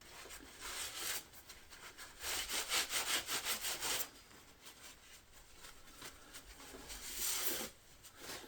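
Quick back-and-forth rubbing strokes on a rusty metal part, in three bursts with pauses, as a thick homemade rust-remover paste is wiped off it.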